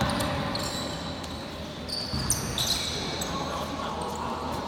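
A basketball bouncing on a gym court, with a few knocks about two seconds in, and several short high-pitched squeaks.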